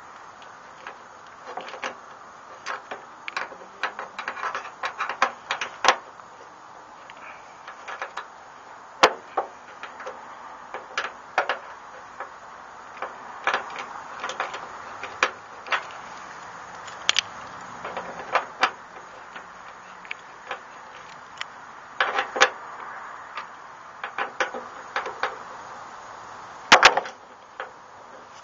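Irregular metal-on-metal clicks and taps from a folding Torx key set turning the bolt on a pickup tailgate's strap bracket, the spare keys rattling in the handle, over a steady low hiss. The sharpest is a double click near the end.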